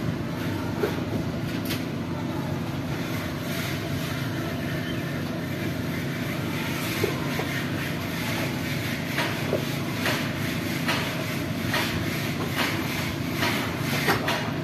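Cat eating rice and fish, chewing and smacking in quick irregular clicks that come more often in the second half, over a steady low background rumble.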